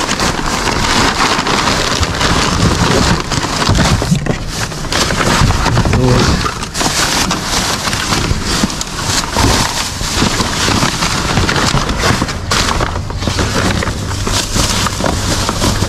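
Plastic bags and cardboard packaging rustling and crinkling continuously as hands rummage through a wheelie bin full of packaging waste.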